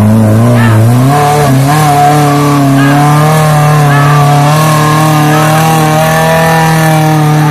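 Suzuki SJ-series (Jimny) 4x4's engine revved hard and held at high revs while the vehicle pulls under load up a muddy bank. The pitch steps up about a second in, then stays steady.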